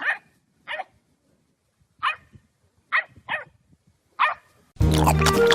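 A dog barking six short barks, spaced unevenly over about four seconds; music starts near the end.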